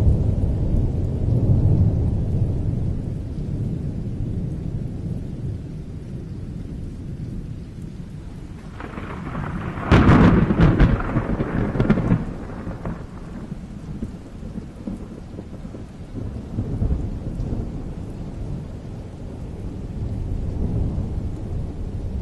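Thunder rumbling low and continuously in a rainstorm. About ten seconds in a sharp, loud thunderclap cracks and rolls on for a few seconds before the rumble settles back.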